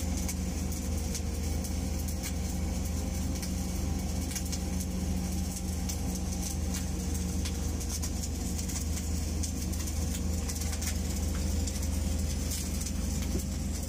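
Automatic orbital pipe-welding machine running a weld around a steel pipe joint: a steady low hum with a fine, continuous crackle of the welding arc over it.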